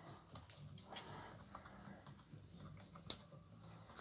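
Small clicks and scraping of a thin metal tool against the plastic rear handle of a chainsaw as the pin is pushed out of the throttle trigger, with one sharp click about three seconds in.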